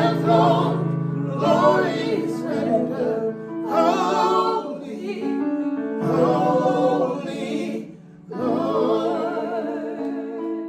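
Gospel worship song: voices sing about five long phrases with vibrato over held chords.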